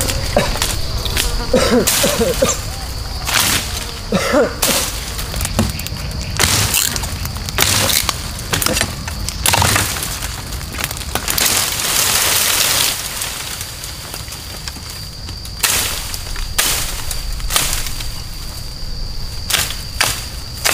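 Irregular sharp knocks and cracks of wood being chopped, over a steady high-pitched insect drone.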